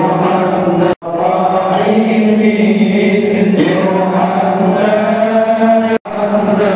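A group of men chanting an Islamic devotional recitation together in unison, in long held tones; the sound cuts out for an instant twice, about a second in and near the end.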